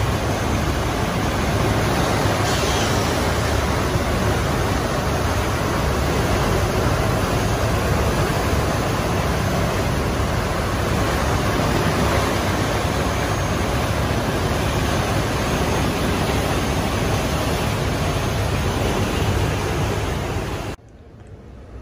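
Steady rushing of the churning wake and wind off the stern of a motor yacht under way, with low engine rumble underneath; it cuts off suddenly near the end.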